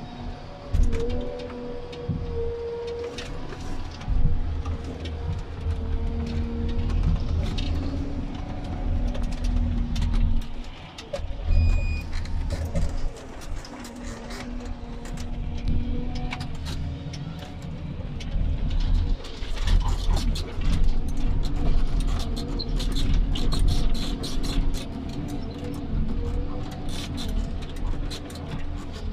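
Komatsu 931.1 forestry harvester heard from inside its cab: the engine running under load with a hydraulic whine that shifts in pitch as the crane and harvester head work. Dense crackling and knocking comes in over the last third as the head feeds a log through, delimbing it.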